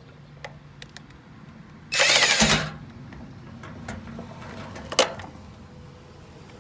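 Cordless power driver running a fender screw back in: one short burst of under a second about two seconds in, with small clicks of the screw and tool handling and a sharper click near five seconds.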